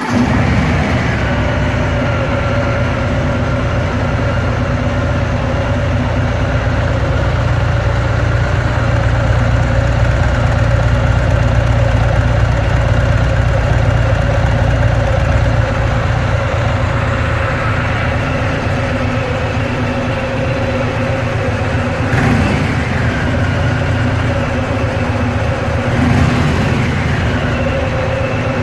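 2019 Harley-Davidson Fat Boy's Milwaukee-Eight V-twin idling steadily through its stock exhaust, just after a start. The low rumble eases slightly past the middle, with two brief swells in level near the end.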